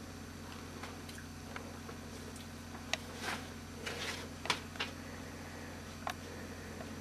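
A steady low hum under a handful of short clicks and brief rustles, most of them about halfway through.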